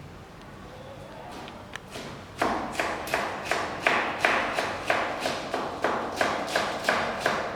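Knife chopping on a cutting board in a steady rhythm, about three strokes a second, starting a couple of seconds in.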